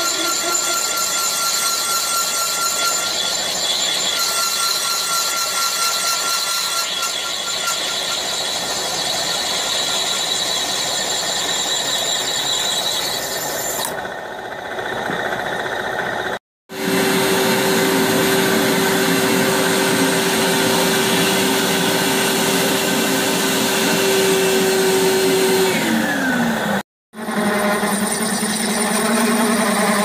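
Milling machine cutting a hole in a brass boiler flange for a heater element, a steady machining whine with the grind of chips coming off the cutter. The sound is broken twice by brief silences, and near the end of the middle stretch the machine's tone drops in pitch.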